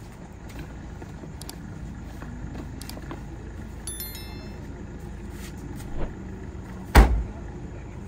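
Honda BR-V's tailgate slammed shut about seven seconds in, one loud thud, over a steady low rumble of the car running. Before it come light knocks of bags and boxes being pushed into the boot, and a short high chirp about four seconds in.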